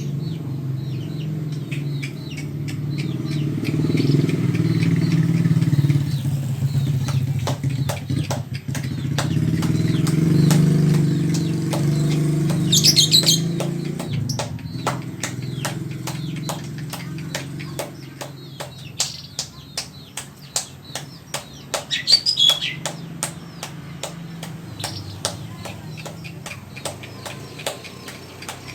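A caged songbird hopping and fluttering in its cage: many small sharp clicks and wing flaps, and two short high chirps, one about halfway in and one later. Underneath is a low steady engine-like drone that is louder in the first half and then weakens.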